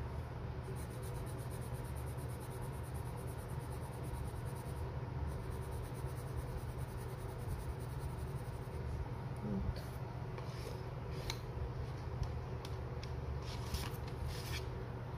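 Watercolour pencil lead scratching on paper in rapid back-and-forth shading strokes, with a brief break about five seconds in, over a steady low hum. The strokes stop about two-thirds of the way through and are followed by a few light clicks.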